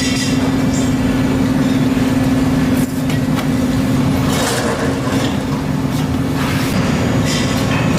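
A machine running with a steady, loud hum and a grinding noise over it, cutting off abruptly at the end.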